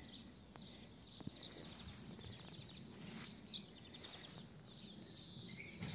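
Faint outdoor ambience with short, high bird chirps now and then and a few faint ticks.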